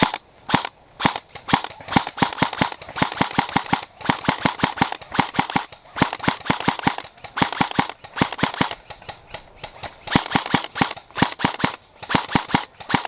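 Airsoft guns firing, sharp cracks coming in rapid strings and short bursts with brief pauses between them.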